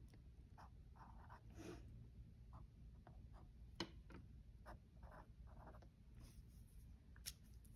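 Faint scratching of a pen writing on planner paper in short, separate strokes as dates are written in, with a sharper tick about four seconds in.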